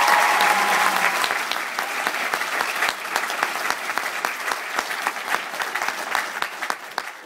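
Theatre audience applauding, loud at first and gradually dying away toward the end.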